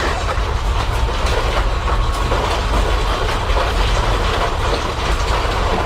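Building and its contents shaking in a strong earthquake: a steady deep rumble with dense rattling and clattering.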